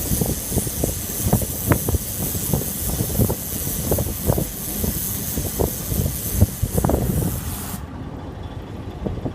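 Loud, steady hiss of pressurised gas venting, cutting off suddenly about 8 seconds in, with irregular metallic knocks and clanks underneath throughout.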